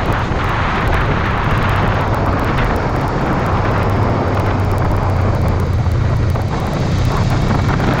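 Honda CBR500R's 471cc parallel-twin engine running at steady revs while riding, under heavy wind rush on the microphone.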